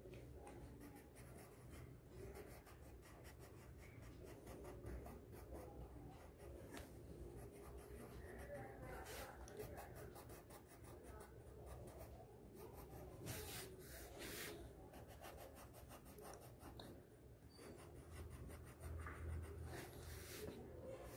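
Colour pencil scratching on paper in many short, quick strokes as a drawing is shaded in; faint.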